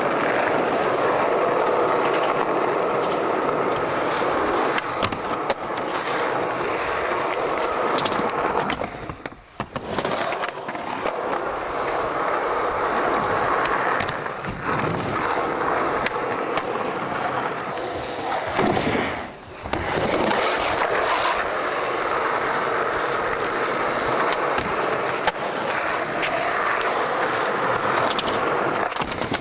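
Skateboard wheels rolling on concrete, broken by sharp clacks of the board popping and landing. The rolling noise drops out briefly twice, about a third and two-thirds of the way through.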